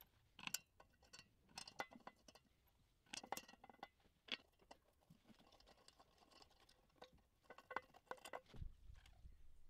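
Faint scattered clicks and light metallic taps of wing nuts being fitted and turned on the bolts of an acrylic chamber lid, with a soft low thump near the end.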